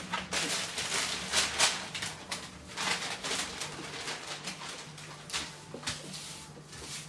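A string of short rustling and scraping noises from things being handled, over a steady low hum.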